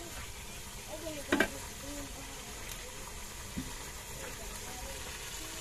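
Steady hiss of a single-burner gas stove on a cylinder, heating a pot. A sharp knock about a second and a half in.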